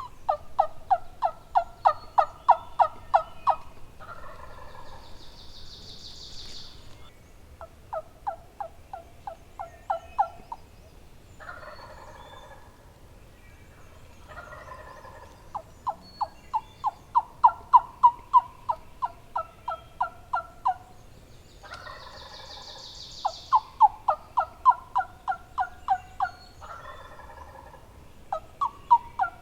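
Turkey yelping in fast runs of sharp notes, several notes a second, each run lasting a few seconds, with rougher calls in the gaps between runs.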